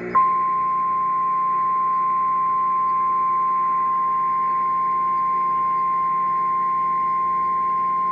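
NOAA Weather Radio 1050 Hz warning alarm tone: a single steady, pure, high tone that starts abruptly and holds at one level. It signals that a warning, here a tornado warning, is about to be read. A faint low hum sits underneath.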